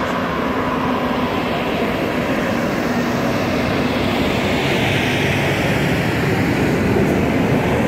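Tractor-trailer hauling an empty flatbed trailer passing on the road: a steady engine drone and tyre noise that builds slowly and stays loud.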